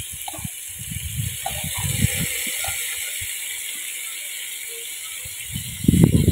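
Boiled githeri grains scooped out of an aluminium pot with a plastic lid and tipped into a metal cooking pot: scraping, rattling and low knocks of plastic and grains against metal. The knocking is louder and denser near the end, over a steady hiss.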